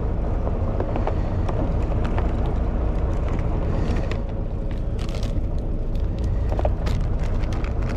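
Fishing boat's engine running steadily under way, with a constant low drone and rush, and a few light clicks and taps in the second half.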